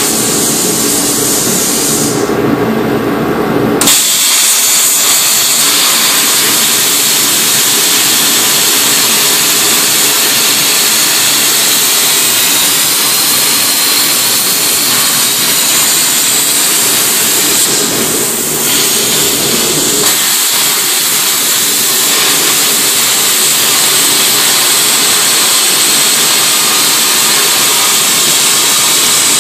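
Plasma cutter hissing steadily as its arc cuts through steel plate. The sound changes briefly near the start and again about two-thirds of the way through.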